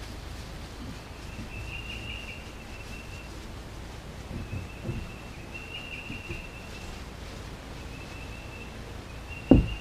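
Outdoor ambience: a high, buzzy trill from an unseen animal repeats every second or two over a low steady rumble. One sharp low thump comes near the end.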